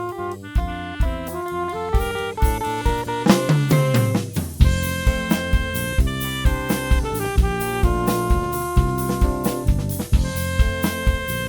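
Instrumental jazz-style band music: a saxophone melody over electric guitar, bass and drum kit. A drum fill and a falling low glide a little after three seconds lead into a loud accented downbeat about four and a half seconds in.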